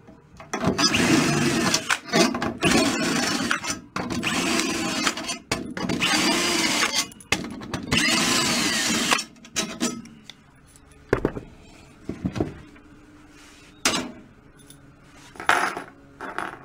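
Cordless drill/driver spinning out a snare drum's top tension rods, in about six runs of a second or two each with the motor pitch bending as it loads and frees up. After that, a few sharp clicks and knocks near the end.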